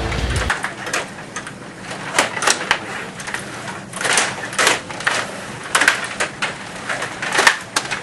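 Stiga rod table hockey game in play: a rapid, irregular clatter of plastic clicks and knocks as the control rods are worked and the puck strikes the players and boards, with a few sharper knocks from about four seconds in.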